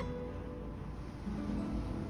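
Background music on plucked acoustic guitar, notes ringing out, with new low notes coming in about a second in.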